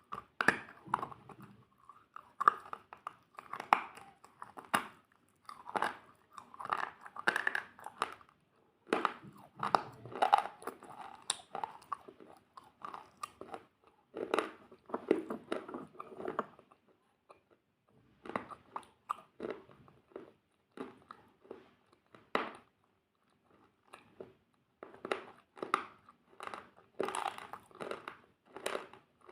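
Close-miked chewing of crunchy food, with loud crackling bites in runs of a second or two and short pauses between mouthfuls.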